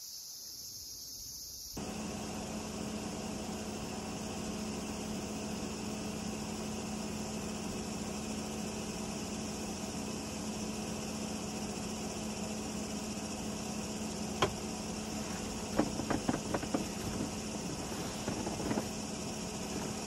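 Insects chirring for the first two seconds, then a portable air conditioner running steadily, a constant whir with a low hum. Over it, a single sharp knock, then a quick cluster of light knocks and clicks, and a few more near the end.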